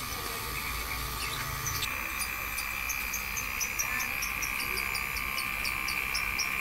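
Daikin inverter air conditioner outdoor unit running with its compressor under load: a low hum, joined about two seconds in by a steady high whine. Over it comes a run of short high chirps, about four a second.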